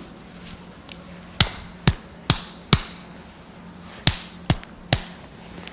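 Seven sharp clicks during a chiropractic adjustment: a quick run of four, a pause of about a second, then three more, each about two to three a second.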